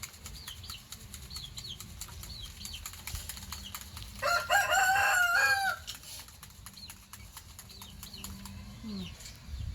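An animal's long pitched call, held about a second and a half a little after four seconds in, rising at the start and falling away at the end. Faint short high chirps and clicks repeat throughout.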